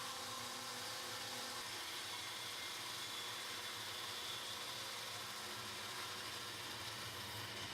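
Bandsaw with a diamond-ground-tooth blade running and cutting through wood, a steady, fairly quiet hiss with no change in pitch.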